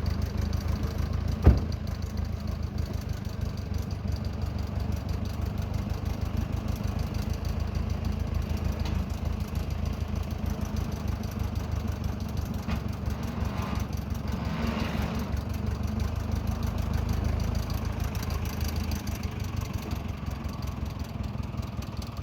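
Steady engine noise from a 1995 BMW E34, an even drone with fast regular pulsing. There is one sharp click about a second and a half in.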